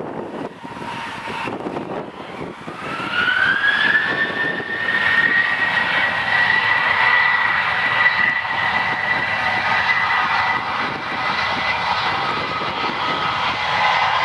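Boeing 737-800's twin CFM56-7B turbofan engines spooling up to takeoff thrust: a whine climbs in pitch over a few seconds, then holds steady and loud as the jet starts its takeoff roll.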